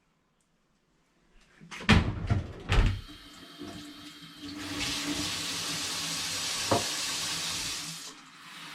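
A few loud clunks and knocks, then a kitchen tap runs steadily for about three and a half seconds, filling the blender jar with water, and shuts off.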